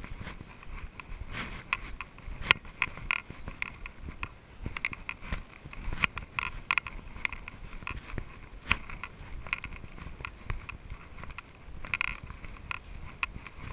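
Mountain bike ridden over a bumpy trail, heard from a camera mounted on it: irregular clicks and rattles over a steady low rumble of tyres and wind.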